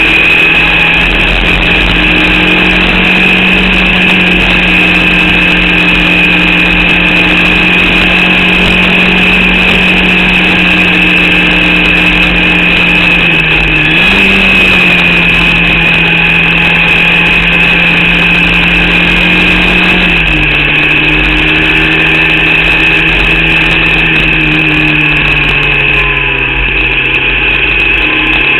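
Formula Vauxhall 8-valve racing engine heard onboard at speed, holding near-constant revs with a brief dip about 14 seconds in and falling revs from about 20 seconds in and again near the end. The engine is one the driver reports as misfiring and losing power from an alternator/battery fault.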